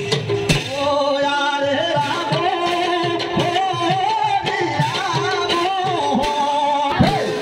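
Bhaona theatre music: a singer holds a long, wavering melodic line over steady held notes, with drum beats underneath.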